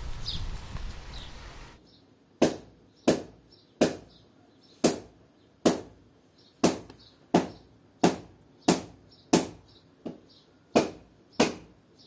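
A run of sharp, short knocks, about one every two-thirds of a second with a few longer gaps, after a couple of seconds of faint outdoor ambience with bird chirps.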